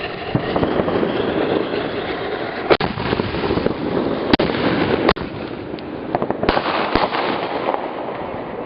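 Consumer fireworks going off: a continuous dense crackling with about five sharp bangs scattered through it, the crackle thinning toward the end.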